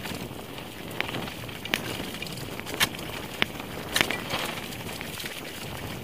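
Mountain bike riding fast down a rough dirt singletrack: steady tyre and wind rush broken by about five sharp clicks and knocks as the bike rattles over the trail.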